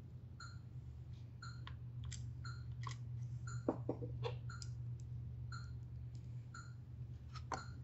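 Small clicks and knocks of screws and a screwdriver handled against a syringe pump's plastic housing and circuit board during reassembly, over a steady low hum. A faint short tick repeats about once a second.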